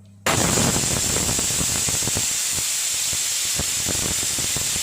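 Stovetop pressure cooker whistling: steam jets out from under the weight with a loud, shrill hiss and sputtering crackles, starting suddenly just after the start. It is the sign that the cooker is at full pressure while chicken cooks inside.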